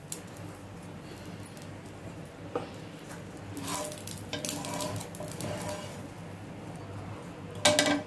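Quiet kitchen background with a low steady hum, a single light knock about two and a half seconds in, faint voices in the middle and a brief voice near the end.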